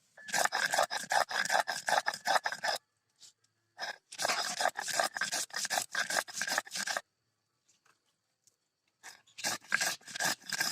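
Rapid back-and-forth scraping or rubbing strokes, several a second, in three bursts with short pauses between them.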